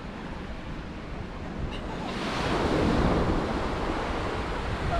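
Sea waves breaking on a sandy beach. One wave swells up about two seconds in and then eases off as it washes out. Wind rumbles on the microphone throughout.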